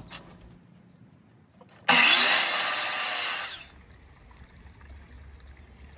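DeWalt sliding miter saw cutting through a Douglas fir 2x4: a single short cut that starts suddenly about two seconds in and stops after about a second and a half.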